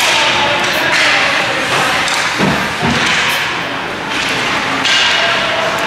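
Ice hockey play in an indoor rink: skate blades scraping the ice and sticks clattering, with two thuds about two and a half seconds in.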